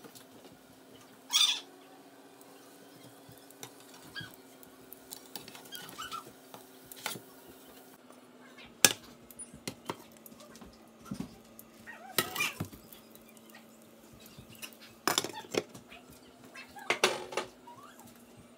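Kitchenware clattering: a frying pan, a plate and a glass pan lid knock and clink together in scattered short strokes while the cake is turned and covered, over a steady low hum.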